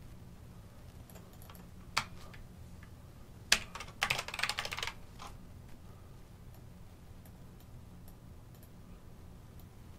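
Typing on a computer keyboard: a couple of separate sharp keystrokes, then a quick run of keys for about a second near the middle, and faint scattered taps after that, over a steady low hum.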